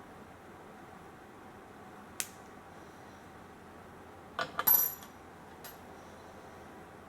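Small metal reel parts and a small tool clinking on a hard work surface: a light tick about two seconds in, then a quick run of metallic clinks with a brief high ring just before five seconds, and one more tick after it.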